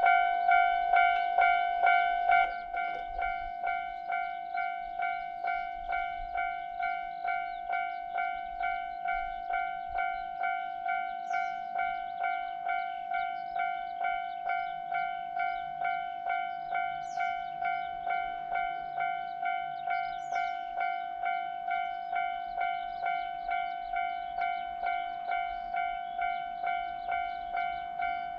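Japanese level-crossing warning bell ringing its rapid "kan-kan" alarm, about two strokes a second, and dropping a little in loudness about two seconds in.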